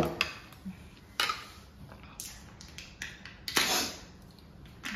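Metal spoon scraping and clicking in a paper cup of ice cream, a few short separate strokes, the longest about three and a half seconds in.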